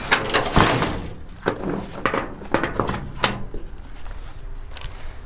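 Metal clunks and knocks from handling the sheet-metal body of an old Mack B61 diesel truck, its hood, latches or cab door. The clunks are loudest in the first second, with a few more spaced over the next three seconds.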